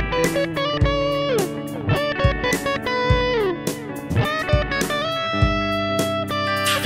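Background music: an electric guitar melody over a steady beat, with a low thump about every 0.8 seconds.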